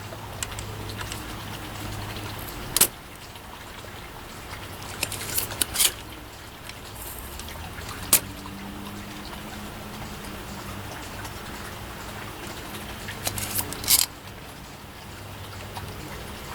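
Spring-loaded desoldering pump (solder sucker) being cocked and fired to suck molten solder from a circuit-board joint: a few sharp snaps several seconds apart over a faint low hum.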